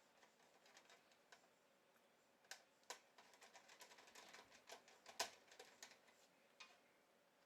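Faint, irregular small clicks and ticks of wiring work at an alarm panel's terminal block, wires and a jumper being handled at the screw terminals. The clicks come thickest in the middle, with the sharpest one about five seconds in.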